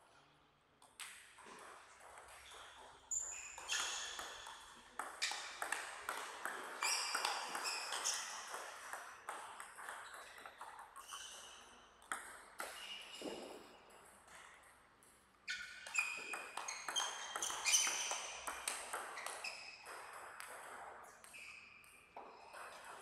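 Table tennis rallies: the ball clicking off rackets and table in quick alternation, each hit ringing briefly in the hall. There are two rallies of several seconds each, one about three seconds in and one from about the middle, each ending as the point is won.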